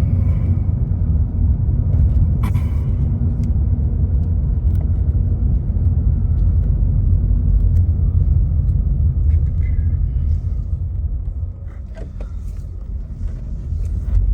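2007 Honda Civic Hybrid's 1.3-litre four-cylinder engine running rough while driving under throttle, a continuous low sound that dips a little near the end. It is sputtering and won't pull because of random misfires and misfires in cylinders 1 and 3, after the engine ran low on oil.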